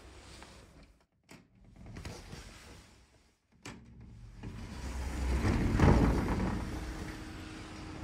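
Sliding window in a metal frame being moved open, with two sharp clicks. Outdoor noise then swells in through the opening, loudest about six seconds in, and eases into a steady outside hiss.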